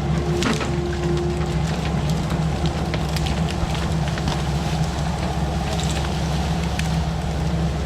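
Heavy equipment's diesel engine running steadily under load, with brush and branches crackling and snapping throughout.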